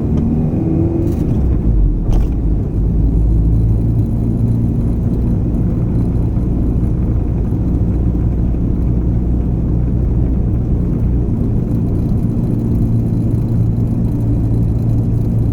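Honda H22-engined (H2B) Civic running while driving, a steady low engine drone with a brief change in pitch about two seconds in.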